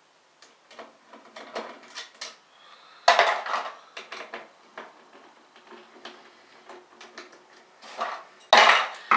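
Hand screwdriver backing out the screws of a motherboard's CPU cooler clip mounts, with small clicks and rattles of metal and plastic parts. There are two louder clatters, about three seconds in and near the end.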